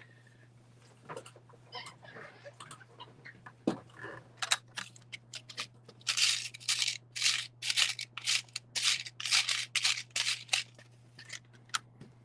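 Hands rummaging through a box or drawer of small parts: scattered clicks and rattles, then, about halfway through, a run of quick scraping, rustling strokes about two a second.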